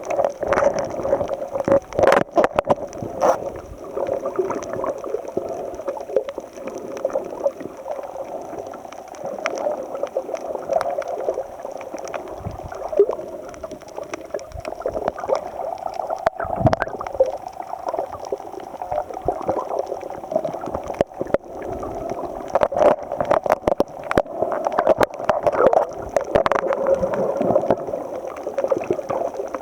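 Water gurgling and sloshing, with many scattered sharp clicks and knocks and a faint steady high whine.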